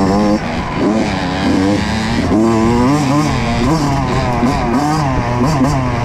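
Kawasaki KX85 two-stroke dirt bike engine revving hard and easing off over and over, its pitch repeatedly climbing and dropping as the throttle is worked.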